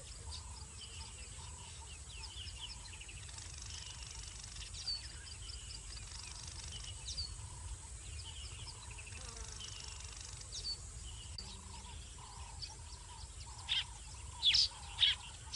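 Wild birds chirping and calling around a waterhole, with a softer low call repeating steadily in the background and a few louder sharp chirps near the end, over a steady low rumble.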